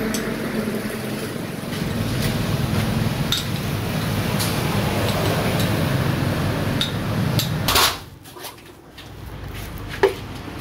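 Coffee-bar work noise: a steady background din with scattered clinks of cups and utensils, then a brief loud burst of noise. After a sudden drop to a quieter room, one sharp knock of a plastic jug being set down.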